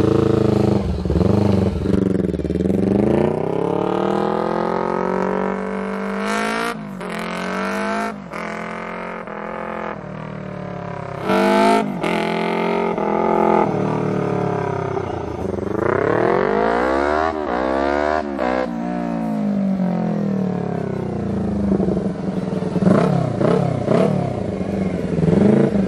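Yamaha Vixion motorcycle with a swapped-in two-cylinder engine and a CJDW racing exhaust fitted with a three-mode DB killer adapter, ridden on a road test. The engine note climbs in pitch and drops back again and again as it accelerates and shifts gears, with a pass-by in the middle.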